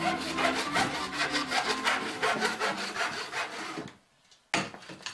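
Handsaw cutting through a wooden tabletop in fast, even strokes. The sawing stops about four seconds in, and a sudden thump follows half a second later.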